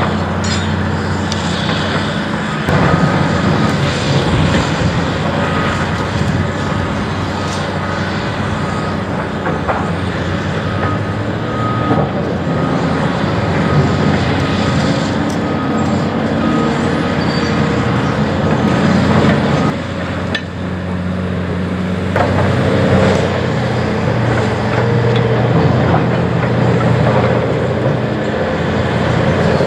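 Cat 336F excavator's diesel engine running steadily under load while its demolition attachment works a pile of broken concrete, with scattered knocks and scrapes from the rubble.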